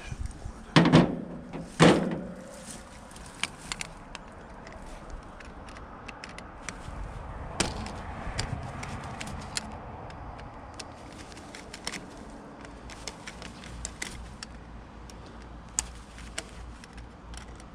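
Two loud bangs about a second apart near the start, each with a short ring after it, followed by scattered light clicks and knocks of handling.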